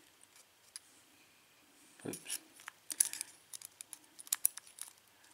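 Light metal clicks and ticks of steel tweezers working in a lock cylinder's pin chamber, pulling out a pin stack. The clicks come in a quick irregular cluster starting about two seconds in, with one duller knock among the first of them.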